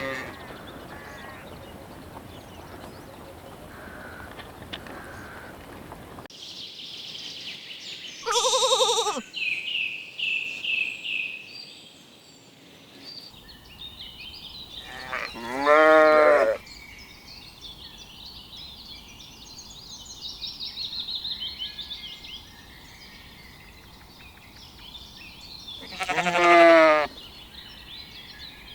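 Lambs bleating: three separate quavering bleats, spread several seconds apart.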